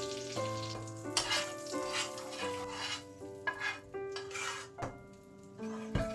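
Cooking in a pan: a utensil stirring in short, irregular strokes while food sizzles. Soft instrumental background music with held notes plays underneath.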